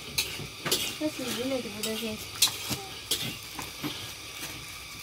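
An aluminium cooking pot and kitchen utensils being handled, making a string of sharp, separate clinks and knocks. A short voice-like sound with a rising and falling pitch comes about a second in.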